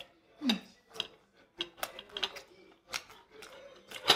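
Steel knife and fork clinking and scraping against a ceramic plate while cutting lamb chop: a string of separate sharp clicks, loudest about half a second in and again near the end.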